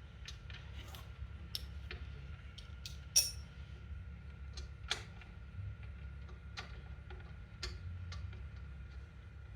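Irregular clicks and light metallic clinks of hand tools working on mower bolts, with one sharper ringing metal clink about three seconds in, over a steady low hum.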